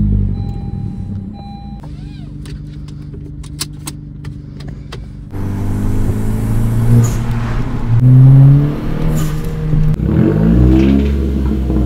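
A 2021 Honda Civic Hatchback Sport's 1.5-litre turbocharged four-cylinder engine idling, with a chime tone repeating for the first two seconds. About five seconds in it becomes louder as the car is driven, its pitch rising as it accelerates, then it is revved near the end.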